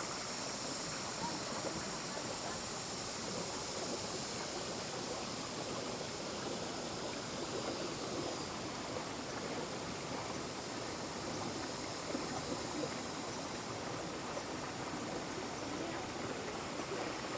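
Steady rush of water from a jungle waterfall and its stream.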